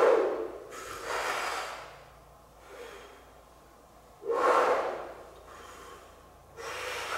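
Deep breaths drawn through lips rounded into an 'oh' shape, with fingers held at the mouth. Each gives a rushing wind noise, not a voice, as the lungs fill with a lot of air. There is a louder rush followed by a softer one, twice over.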